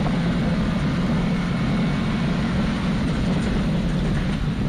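Subaru Impreza rally car's flat-four engine running steadily at speed, heard from inside the cabin under a constant rush of tyre and road noise.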